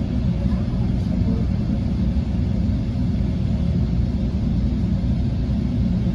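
Sound Transit Sounder commuter train in motion, heard from inside a passenger car: a steady low rumble of wheels on rails and the car running.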